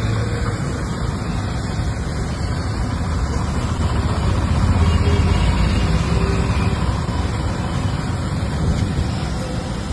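Steady bubbling and hissing of a large wok of potato chips deep-frying in oil over a gas burner, a continuous low, even noise.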